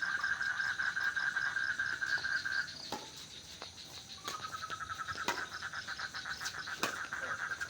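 A rapid, evenly pulsed trilling animal call held on one pitch. It breaks off about two and a half seconds in, starts again a little lower about a second and a half later, and a few sharp clicks fall in between.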